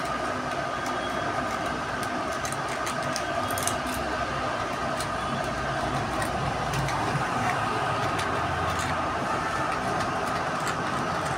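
Emery paper scratching as it is rubbed by hand around the copper commutator of a two-wheeler self-starter motor's armature, cleaning off the black deposit that keeps the starter from working. A steady mechanical hum runs underneath.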